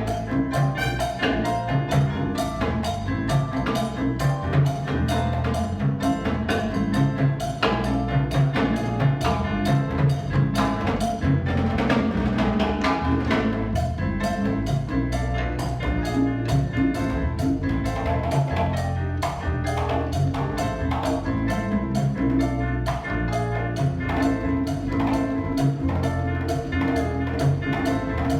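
Latin jazz ensemble playing the mambo and solo section: fast hand-drum and timbale strokes over a steady bass line, with piano and trumpet.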